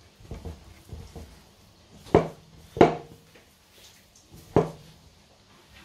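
Hands kneading crumbly dough in a glass mixing bowl: a few soft thuds, then three sharp knocks against the bowl, the first two leaving a short ringing tone.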